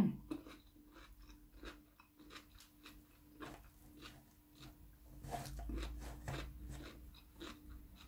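A person chewing salmon laab with raw vegetables close to the microphone: irregular soft mouth clicks and crunches over a faint steady hum. A low rumble comes in about five seconds in.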